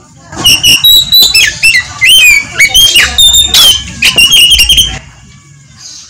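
Oriental magpie-robin (kacer) singing loudly: a rapid, varied run of whistled notes, slurred rising and falling glides and sharp clicks. It starts about half a second in and stops at about five seconds.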